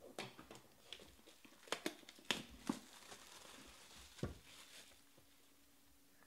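Clear plastic shrink wrap crinkling and tearing as it is stripped off a sealed trading card box, with a burst of sharp crackles about two seconds in. A dull knock about four seconds in as the box is set down.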